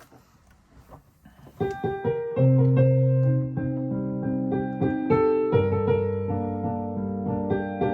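Piano music: a quiet moment, then piano notes and chords begin about one and a half seconds in and carry on as a slow, held piece.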